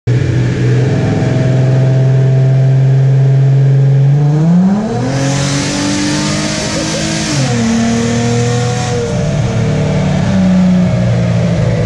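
Infiniti G35 coupe's V6 running on a chassis dyno: it runs steadily, revs up smoothly about four seconds in and holds there with a hiss over the top, then drops back near the middle and runs on at a steady lower speed.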